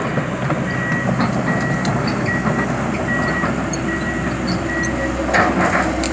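Komatsu PC200 LC tracked excavator with its diesel engine running and its steel tracks clattering as it travels. A high travel-alarm beep repeats about once every 0.8 s, six times, then a louder crunch comes near the end.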